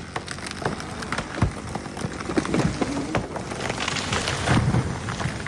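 A large tulip poplar coming down: a rapid run of cracks and snapping branches, building to a heavy crash about four to five seconds in as it falls into a neighbouring tree.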